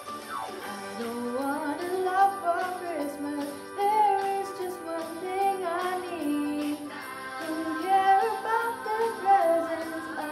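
Young woman's solo voice singing a Christmas pop song over a backing track with sleigh bells; the voice comes in about half a second in and slides between notes in runs.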